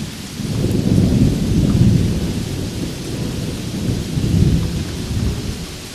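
Steady rain with rolling thunder, the rumble swelling about a second in and again around four seconds.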